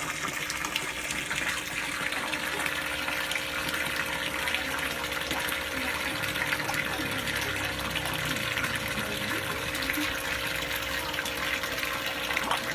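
A stream of water pouring from a pipe into a koi pond, a steady splashing rush, with a faint steady hum underneath.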